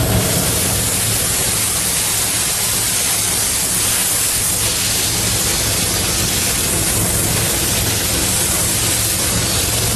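Steady loud hiss of steam inside the cab of the Disneyland Railroad steam locomotive Ward Kimball as it rolls out along the track, with a low steady rumble underneath.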